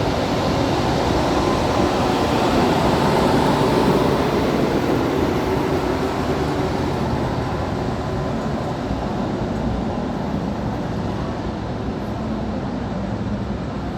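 KTX high-speed train passing: a steady rushing rumble, loudest about four seconds in, then slowly fading as it moves away.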